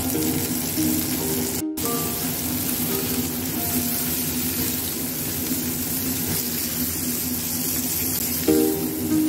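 Pork chops sizzling in oil in a frying pan, a steady hiss, under background music with short, distinct notes. The sound cuts out for an instant about two seconds in.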